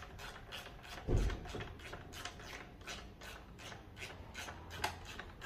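Ratchet with a 10 mm socket clicking steadily, about three clicks a second, as the battery hold-down bracket nut is tightened. A dull thump about a second in.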